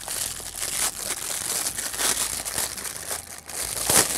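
Clear plastic bag crinkling and rustling in irregular bursts as it is pulled off a soldering station's base unit, with the loudest crinkle about four seconds in.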